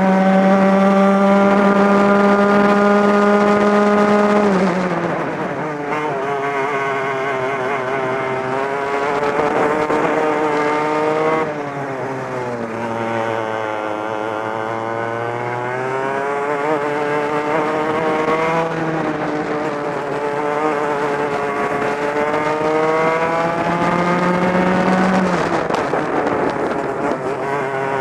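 Two-stroke racing kart engine heard from on board, at full throttle with its pitch held high, then dropping sharply three times as the driver lifts off for corners and rising steadily again on each exit.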